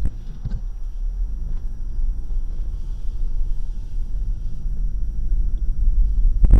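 A car's engine and tyre rumble heard from inside the cabin, growing steadily louder as the car pulls off the roadside and picks up speed on the highway. A sharp click comes right at the start and a thump near the end.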